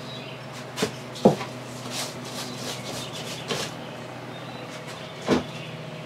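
Wooden band saw box pieces knocking against each other and the work table as they are handled: a handful of separate knocks, the loudest about a second in, over a steady low hum.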